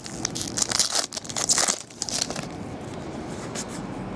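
Foil wrapper of a 2012 Bowman Platinum baseball card pack crinkling and tearing as it is ripped open. The crackling runs for about the first two seconds, then drops to a quieter hiss with a few faint clicks.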